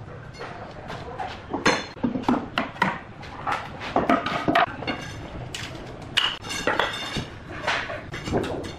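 Irregular knocks, clatter and sharp clinks, a few ringing briefly, as wooden formwork boards are knocked and pried loose from a cast concrete counter.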